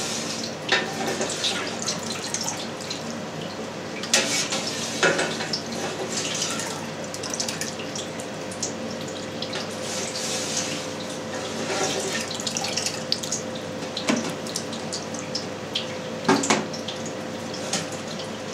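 Whey trickling and splashing as cheese curds are scooped from a stainless-steel vat into a plastic mould and drain through a perforated steel tray. Now and then the scoop knocks or scrapes against the steel.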